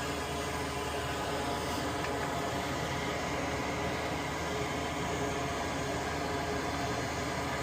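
Steady whir of a small fan motor running at constant speed, unchanging throughout.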